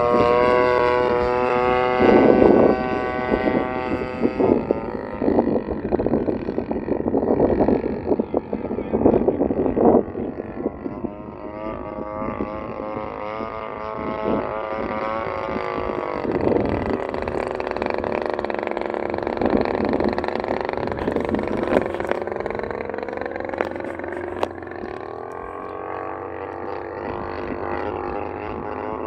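Radio-controlled Piper PA-18 Super Cub model airplane's motor droning as it climbs away and circles overhead, its pitch sliding down and back up several times as it passes and changes throttle. Rough, gusty noise comes and goes over the first ten seconds.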